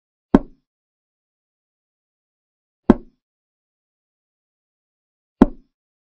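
Chess board move sound effect: a short wooden click of a piece being set down, three times about two and a half seconds apart, one for each move played.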